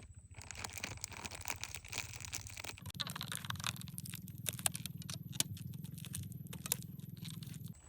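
Crunching and crackling handling noise made of many small sharp clicks, with a low steady hum joining about three seconds in and stopping just before the end.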